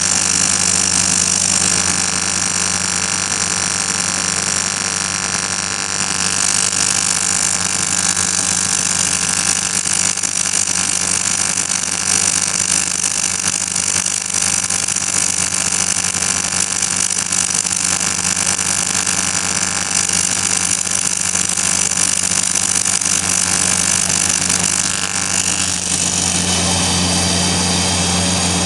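Electric arc welding at around 135 amps, a steady loud hiss over a low hum, the arc held for a long continuous run. It changes slightly in tone about 6 seconds in and again near the end.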